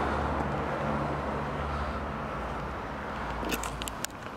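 Road traffic passing nearby, a vehicle's noise fading away over a few seconds, with a couple of faint clicks near the end.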